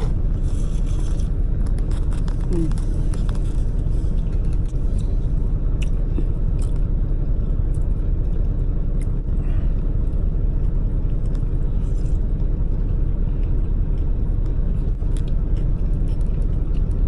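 Steady low rumble of an idling engine, with chewing, biting and small clicks and scrapes from eating.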